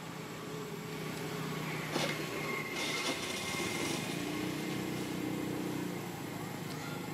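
A small engine running steadily, with a sharp click about two seconds in and a thin high tone for a couple of seconds after.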